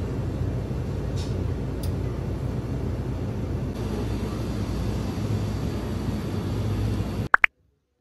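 Steady low rumble of a vehicle in motion, heard from inside. It cuts off abruptly near the end with two short, sharp clicks.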